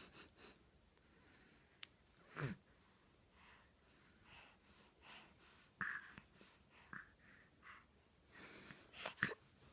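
Two-month-old baby breathing softly between coos, with faint scattered small noises and one brief low vocal sound about two and a half seconds in.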